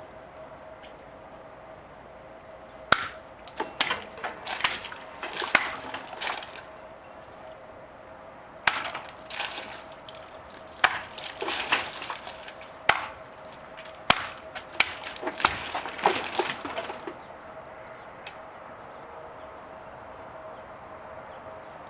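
Water-filled plastic jugs being cut with two short swords (kodachi): several bursts of sharp cracks and clatter through the middle, quieter after that.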